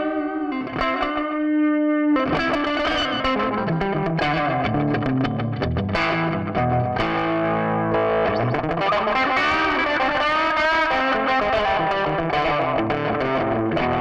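Electric guitar played through a board of TC Electronic effect pedals: a chord left ringing for about two seconds, then a run of picked notes and chords.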